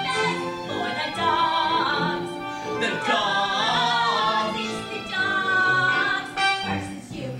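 A woman singing a musical-theatre show tune over instrumental accompaniment, holding a wavering note with vibrato about three seconds in.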